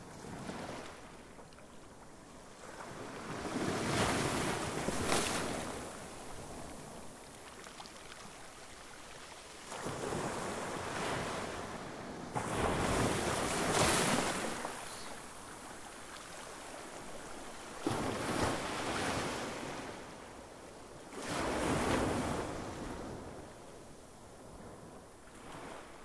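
Sea waves breaking on a beach: five surges of surf swell up and wash away a few seconds apart, with a quieter wash of water between them.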